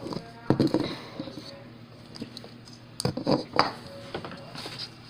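Hard plastic slime containers handled and knocked together: a few clicks and clatters about half a second in and again around three seconds in.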